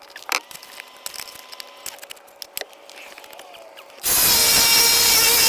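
A power tool's electric motor starts suddenly about four seconds in and runs at a steady high whine, after faint clicks and scrapes of handwork.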